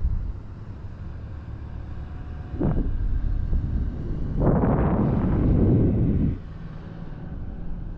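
Wind rushing over a GoPro's microphone high up on a parasail ride, a steady low rumble with a brief gust a few seconds in and a stronger, louder gust from about halfway that lasts nearly two seconds, then dies back.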